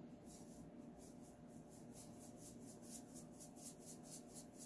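Salt shaken from a Morton salt canister's spout into a measuring cup of water: a faint, rapid, even rattle of about six shakes a second.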